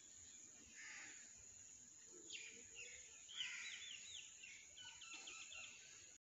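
Near silence: faint room tone with a few distant bird chirps, short high notes that come in quick little runs through the middle.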